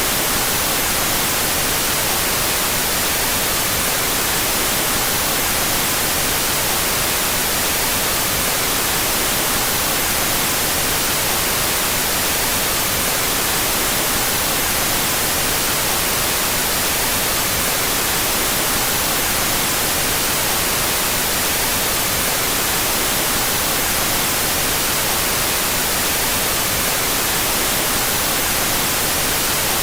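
Steady synthetic white noise, an even hiss across the whole range, played with its two stereo channels out of phase.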